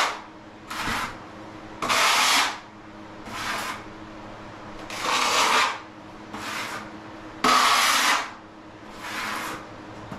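Steel trowel scraping tile mortar in a steady run of about eight scraping strokes, roughly one every 1.3 s, alternating louder and softer.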